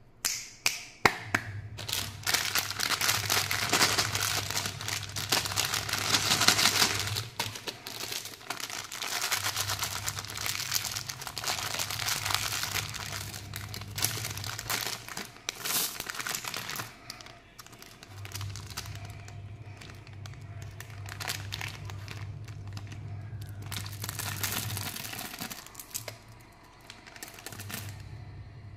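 Plastic and foil candy wrappers crinkling and being torn open by hand, among them a foil M&M's packet. The crackling is heaviest in the first several seconds and comes in irregular handfuls after that.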